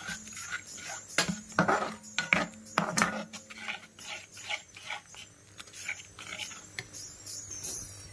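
Perforated metal skimmer scraping and tapping against a pan while stirring thickened white sauce. The sound is a run of irregular clicks and scrapes, busiest in the first few seconds and sparser after.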